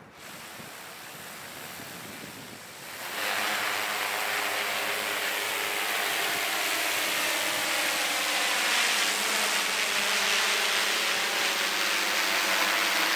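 Large multirotor drone's propellers spinning: a whirring hum that jumps much louder about three seconds in as the drone lifts off, then holds steady with a buzz of several rotor tones as it climbs.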